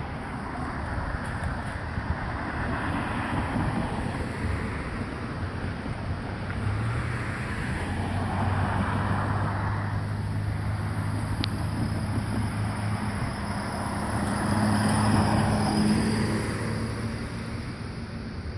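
Road traffic passing: vehicles go by one after another, swelling and fading. A steady low engine drone runs through the middle, and the loudest pass comes about three-quarters of the way in.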